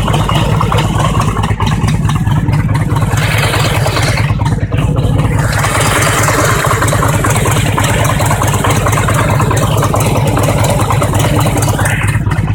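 Harley-Davidson V-twin engine running cold at a steady idle, with the knock it makes when cold.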